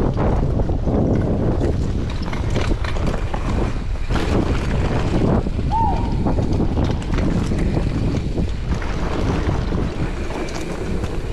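Wind buffeting the microphone and knobby tyres rolling over a dirt singletrack on a Giant Trance 29er mountain bike, with steady knocks and rattles from the bike over bumps. A brief high squeak about halfway through.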